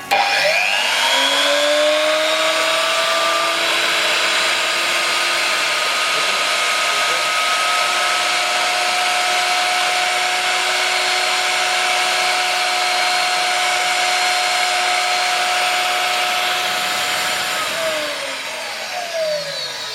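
Spindle motor of a DIY CNC PCB drilling machine spinning up with a rising whine, running steadily at speed, then winding down with a falling whine near the end.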